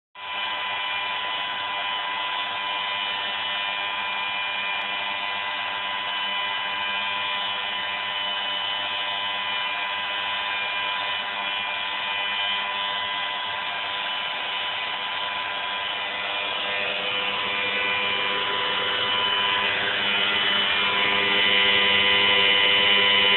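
Leaf blower running steadily, a motor whine over rushing air, as it blows air into an inflatable geodesic dome. The sound grows louder over the last several seconds.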